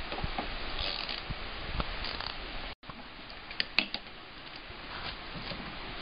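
Light metallic clicks and scraping as a lug nut is turned by hand onto a quad's wheel stud, with a few sharper ticks just after the middle. The sound cuts out for a moment a little under three seconds in.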